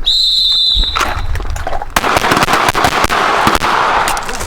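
A high, steady beep lasting about a second, then a rapid string of pistol shots from the firing line that thickens into near-continuous overlapping gunfire.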